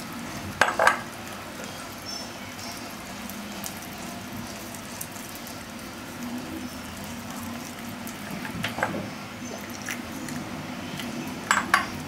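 A hand mixing wet cornflour and rice-flour batter in a glass baking dish. A few sharp clicks come through: two close together near the start, one about two-thirds through and two near the end.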